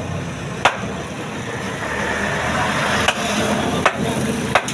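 Butcher's cleaver chopping goat meat on a wooden table: four sharp chops, one about half a second in and three in quick succession near the end, over a steady background rumble.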